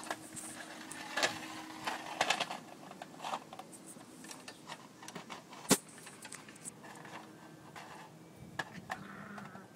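Scattered light clicks, taps and scuffs of a border collie puppy moving about on a wooden deck and playing with a piece of plastic, with one sharp click about six seconds in.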